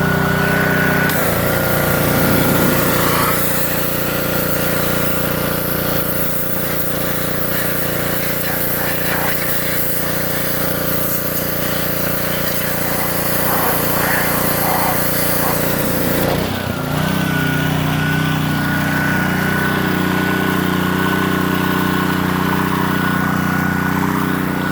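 Gas pressure washer's engine and pump running steadily. About a second in the trigger is squeezed and the high-pressure spray hisses while the engine note changes under the load. The spray stops about sixteen seconds in and the machine settles back to its unloaded running note.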